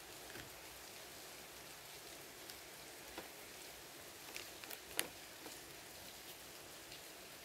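Faint handling of trading cards: a few soft ticks and taps as cards are picked up and moved, with one sharper tap about five seconds in, over a steady background hiss.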